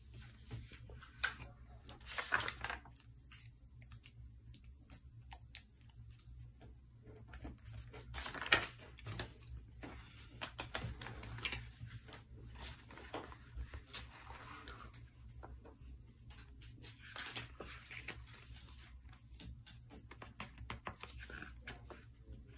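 Paper and sticker handling on a journal page: light fingertip taps and clicks as stickers are peeled and pressed down, with bursts of sticker-sheet and page rustling about 2, 8 and 17 seconds in.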